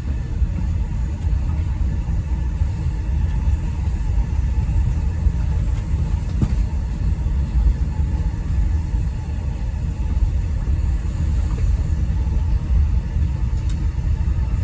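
Steady low rumble of an E217 series electric train running between stations, heard from inside the upper deck of a double-deck Green car.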